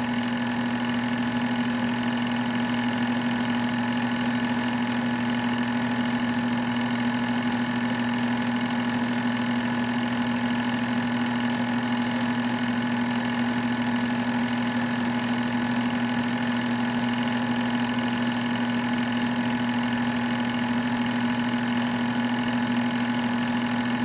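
Sears Tower home-movie projector running, a steady mechanical hum with a strong constant tone from its motor, fan and film drive.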